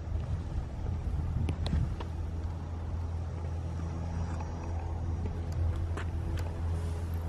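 A steady low hum of a running engine, with a few light clicks.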